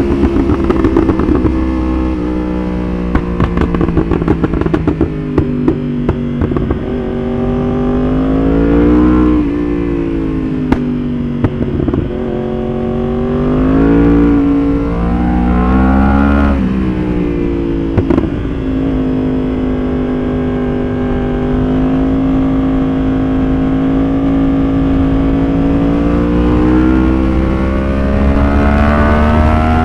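Yamaha R1 inline-four engine being ridden hard, revving up and falling back through the gears, with sharp pops and crackles on the overrun from its pop-and-bang ECU tune, mostly in the first part. Later it holds a long steady pull, and it climbs again near the end.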